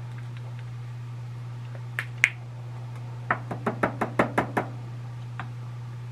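Two sharp clicks, then a quick run of about ten knocks in just over a second, from the plastic parts-cleaning tub being handled while the breech plug is rinsed. A steady low hum runs underneath.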